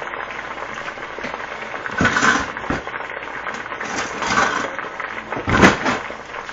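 Pulled pork and macaroni and cheese deep frying in hot grease, a steady sizzling and crackling, with louder surges of sizzle about two, four and five and a half seconds in.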